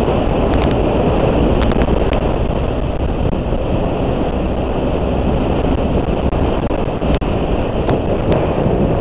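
Motorcycle riding along: a steady engine drone mixed with heavy wind rush on the microphone, with a brief dropout about seven seconds in.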